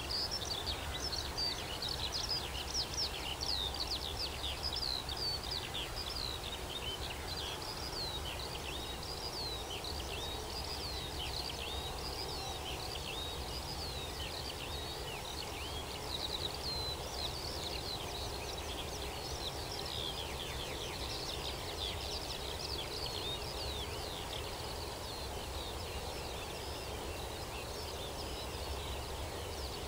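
Many songbirds chirping and twittering at once, a dense run of quick high chirps that carries on throughout, over a steady low background rumble.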